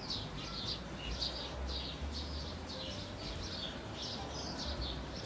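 Indian runner ducklings peeping: short high chirps, each falling in pitch, repeated about three times a second, over a low steady rumble.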